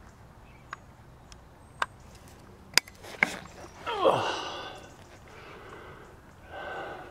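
Crows cawing: a loud harsh call with a falling slide about four seconds in, and a second, quieter call near the end. A few sharp clicks come before the calls.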